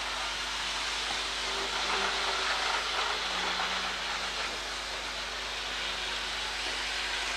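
OO gauge model InterCity 125 (HST) train running along the track: a steady whirring hiss of its motor and wheels, with a faint hum that comes and goes.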